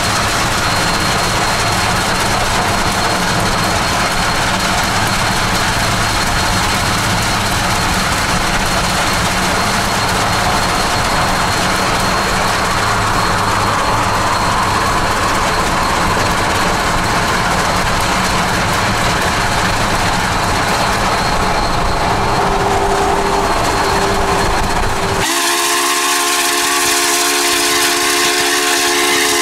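Steady rushing noise of a car driving alongside Union Pacific 844, a 4-8-4 steam locomotive, on the move. About 25 seconds in, the rushing noise cuts out and the locomotive's steam whistle sounds a steady chord of several tones for a few seconds.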